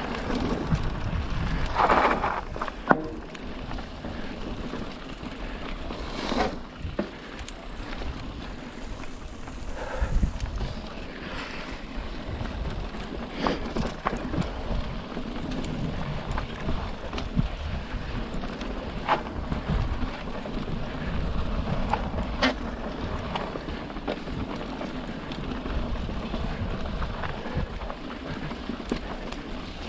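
Mountain bike riding over a rough dirt trail: continuous tyre and ride rumble, with scattered clicks and knocks as the bike rattles over the ground.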